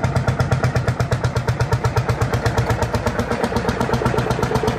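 Lanz Bulldog tractor's horizontal single-cylinder two-stroke hot-bulb engine running under way, giving a steady, rapid thumping.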